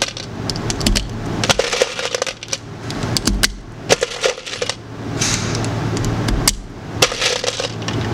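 Pistol cartridges being pressed one by one into a magazine by hand: irregular sharp metallic clicks and clinks over handling rustle.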